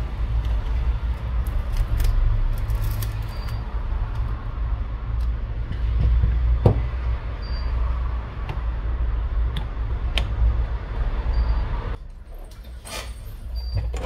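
Samsung Galaxy A51's plastic back cover being pried and peeled off the phone's frame by hand, with scattered small clicks and scrapes as the glue lets go. Under it runs a steady low hum that stops near the end.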